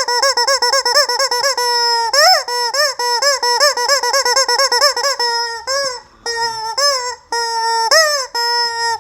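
Squeaky rubber chicken toy being squeezed over and over: short, quick squeaks at about five a second, which turn into slower, longer drawn-out squawks with short pauses from about five seconds in.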